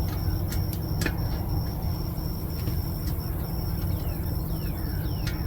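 Light clicks of small heater parts being handled during reassembly, a few times, over a steady low rumble.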